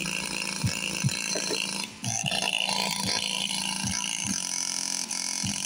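Subwoofer of a multimedia speaker set playing, its driver putting out repeated short deep bass thumps over the steady sound of the track it is playing.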